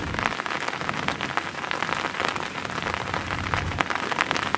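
Heavy rain falling on shallow floodwater: a dense, steady hiss of drops hitting the water, peppered with many small sharp splashes.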